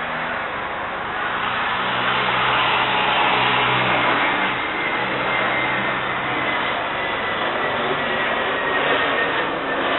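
Airbus A321neo's turbofan engines running at taxi power: a steady rush with a thin high whine that slowly falls in pitch, growing louder about a second and a half in.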